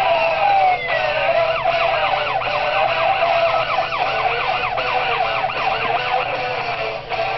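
Siren sounds in the Orlando Solar Bears goal horn audio: long falling wails, then a fast up-and-down yelp from about one and a half seconds in to about five and a half seconds, over a steady held tone.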